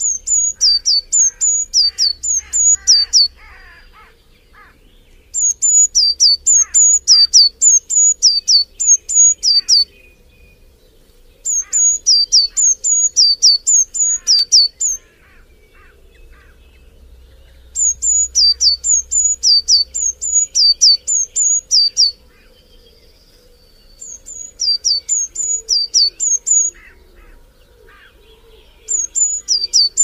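A bird repeating a loud, high, sharp falling note about three times a second, in bouts of about four seconds separated by pauses of about two seconds. Fainter chirps of other birds sound underneath.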